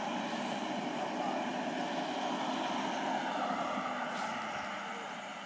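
A motor vehicle running on the road, a steady noise that fades near the end.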